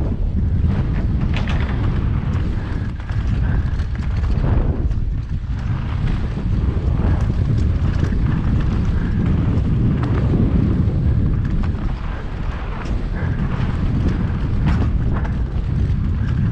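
Mountain bike ridden fast down dirt singletrack: steady low wind rumble on the microphone, with tyres running over dirt and frequent small clicks and rattles from the bike over bumps.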